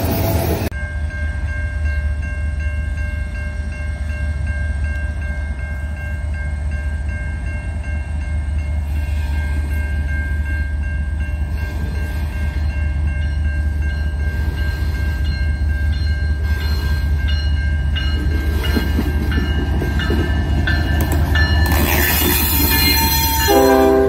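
Canadian National diesel freight locomotive sounding its air horn at length as it approaches, a steady chord of several notes over a low engine rumble. Near the end the locomotives pass close by, loud with engine and wheel noise.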